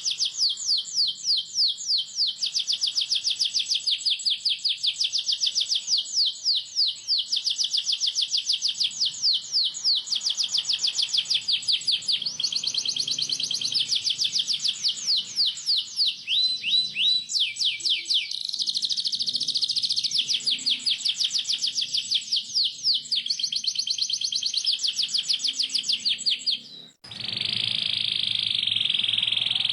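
Domestic canary singing in long, rapid rolled trills, a fast run of repeated falling notes, several a second, changing from one trill type to the next. About 27 s in, the song cuts off abruptly and a steadier, buzzier roll starts.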